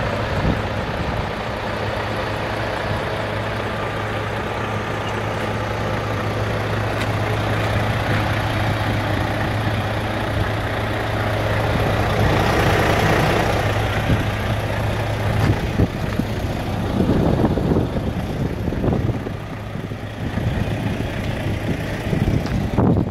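Volvo FH500 tractor unit's 13-litre straight-six diesel engine idling steadily, an even low hum.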